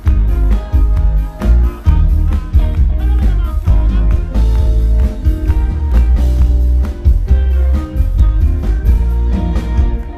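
Live rock band playing the instrumental opening of a song, with heavy bass and steady drum hits throughout.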